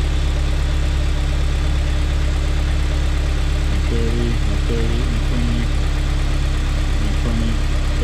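Honda S2000's freshly rebuilt F20C2 four-cylinder engine idling steadily on its first run after the rebuild. Faint voices come in briefly near the middle.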